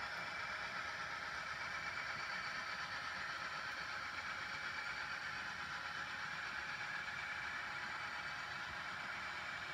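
Model Rio Grande SD40T-2 diesel locomotives running steadily with their freight train along the layout track: a continuous, even mechanical running sound.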